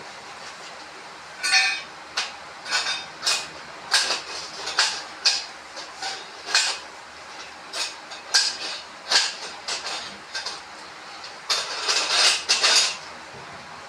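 Metal clanks and clinks from the poles and joints of a folded retractable tent frame being handled, an irregular string of knocks starting about a second and a half in, with a dense cluster near the end.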